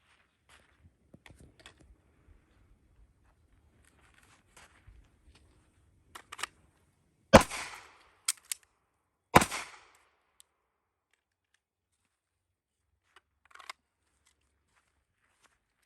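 Two pistol shots about two seconds apart, each cracking sharply with a short echo, preceded by faint clicks and rustling of handling.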